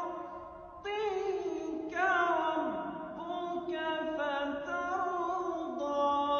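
A solo voice reciting the Quran in melodic chant, holding long, ornamented notes with pitch bends between them.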